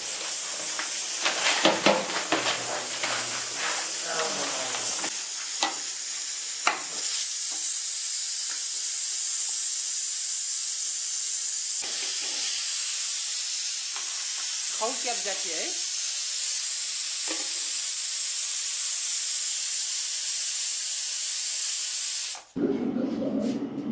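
Small cowrie-shaped dough pieces (kaudi) deep-frying in a pot of hot oil: a steady sizzle. Several sharp knocks and clinks against the pot come in the first few seconds. The sizzle cuts off abruptly near the end.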